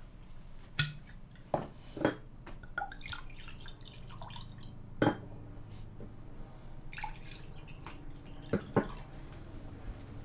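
Glassware and dishes being handled: about six sharp clinks and knocks, spread unevenly over several seconds, over a low steady hum.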